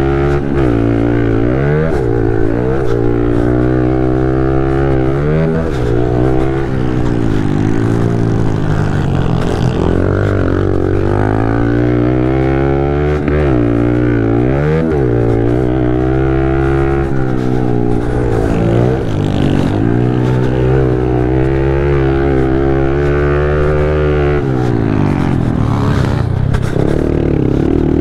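Pit bike engine revving hard under race load, its pitch climbing and dropping back again and again every few seconds as the rider accelerates, shifts and rolls off for the turns.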